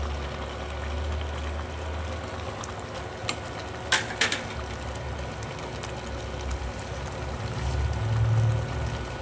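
Bamboo-shoot stew bubbling at a simmer in a stainless steel pot, over a low steady hum. About three to four seconds in there are a few sharp knocks as the ladle is set down on a plastic plate.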